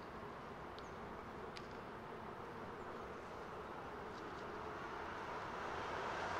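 Buzzing sound blown and voiced into a long tube held to the mouth, over a steady background hiss; it grows somewhat louder near the end.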